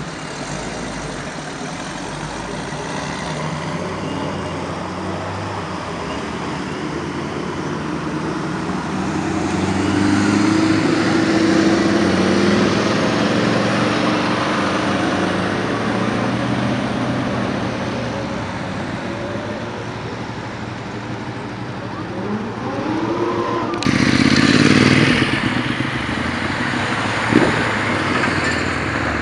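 Classic and hot-rod cars' engines running as they drive past one after another. About 23 seconds in, one engine revs up with a rising pitch, then a louder car passes, and a single sharp knock follows a few seconds later.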